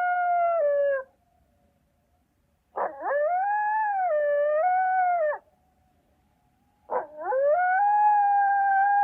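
A dog howling: three long howls with short pauses between them, the first ending about a second in. Each of the next two opens with a quick upward swoop and then holds its pitch; the middle one dips and rises again partway through.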